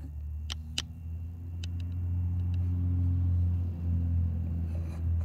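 Two sharp metal clicks about half a second in, then a few lighter ticks, as a small cross-slide milling vise is handled. Under them runs a low steady hum that swells in the middle.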